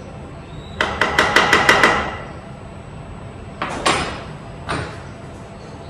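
A quick run of about seven sharp knocks, then two knocks together and a single one a little later, as wooden boards are tapped and clamped down onto a CNC router bed.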